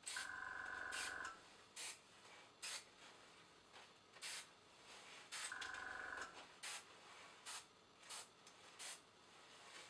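Dual-action airbrush spraying in short puffs of hiss, about ten in a row, as spots are dabbed onto fabric. The two longer bursts, one at the start and one around the middle, carry a steady buzzing tone.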